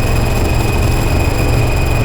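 Harsh noise drone from a DIY synthesizer run through distortion and effects pedals: a steady loud wall of noise with a heavy low rumble and a sustained high whine on top, unchanging throughout.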